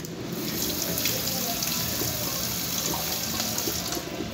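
Kitchen tap running steadily into a stainless steel sink, easing off about four seconds in.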